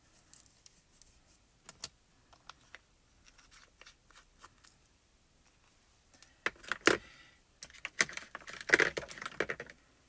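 Small plastic powder jars and a makeup-style brush being handled on a glass craft mat: scattered light clicks and taps, then a burst of louder knocks and rattling clatter in the last few seconds as a jar is set down and another picked up.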